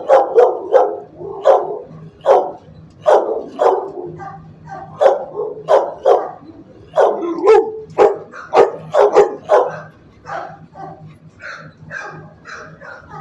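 Shelter dogs barking repeatedly in a kennel, about one or two sharp barks a second, the barks growing fainter over the last few seconds, with a faint steady low hum underneath.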